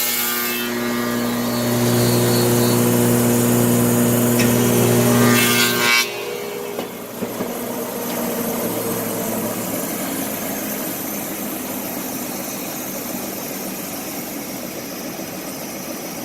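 Electric motors of a woodworking tenoning machine running with a steady hum, which drops off suddenly about six seconds in, leaving a quieter steady running noise with a couple of clicks just after.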